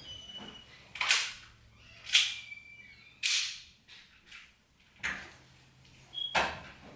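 A series of five sharp knocks or clacks, irregularly spaced about one to one and a half seconds apart, with a faint squeak between two of them.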